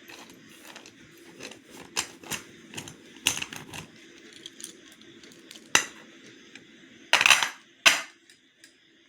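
Slate pencils clicking and clinking against each other and a hard surface as they are handled: a string of sharp, irregular clicks, with a louder longer clatter about seven seconds in.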